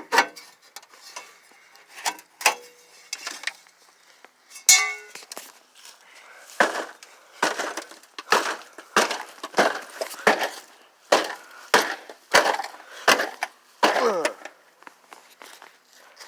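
Kicks and stomps on an old rusted microwave oven: sharp impacts with cracking and breaking of its casing and parts. The blows are sparse at first, then come fast, about one and a half a second, from about six seconds in, with a falling scrape of metal near the end.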